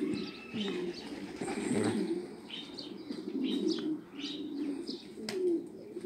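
Several domestic pigeons cooing, a continuous low warbling from the flock, with a few higher chirps and a single sharp click about five seconds in.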